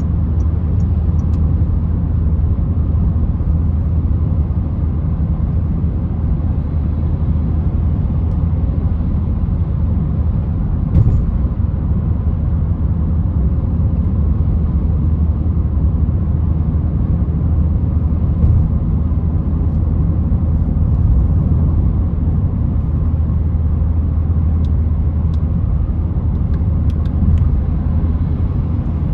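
Steady engine and road rumble of a Citroen C3 1.4 VTi 95 being driven, with a couple of brief knocks.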